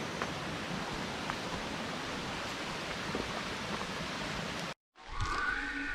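Creek running high and fast after heavy overnight rain, a steady rush of water. Near the end it cuts off abruptly, and a high, wavering call starts up: a hunter practising an elk call.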